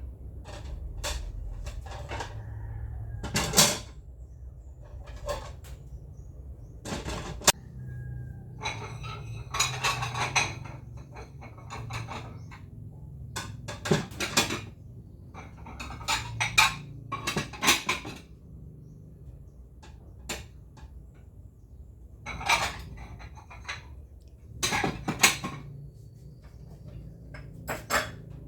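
Kitchenware being handled and set down: irregular knocks, clatters and clinks of dishes and plastic containers, some in quick runs.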